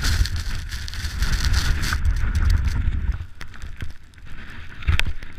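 Wind buffeting an action camera's microphone in a blizzard, with a steady hissing rush above the low rumble. The buffeting drops away about three seconds in, leaving scattered clicks and a sharp knock near the end.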